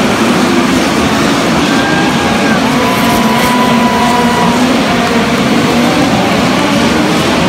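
Midget race cars' engines running hard as a pack laps a dirt oval: a loud, continuous engine noise. Single cars' pitches stand out briefly as they pass.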